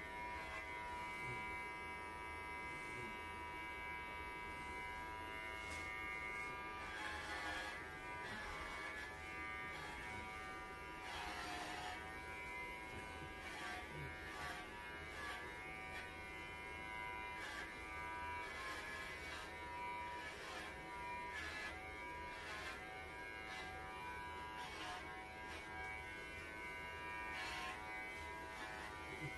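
Electric pet grooming clippers buzzing steadily as they shave a Welsh Corgi's thick coat down, the sound changing briefly several times as the blade works through the fur.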